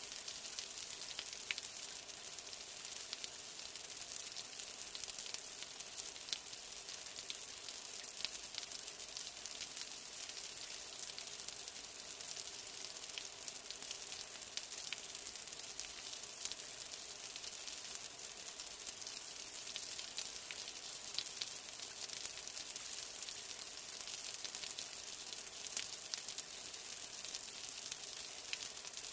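Steady rain falling, a dense hiss with scattered sharp drop ticks.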